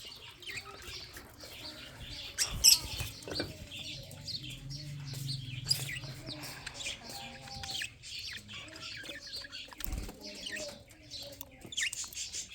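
Budgerigars chirping and chattering in many quick short calls, with a few soft thumps.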